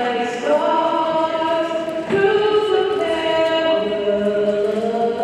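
Voices singing together, holding long notes that step to a new pitch every second or so.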